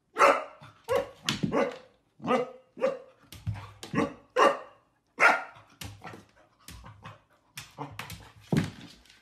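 Golden retriever puppy barking again and again at its own reflection in a mirror, short high yapping barks coming about two a second.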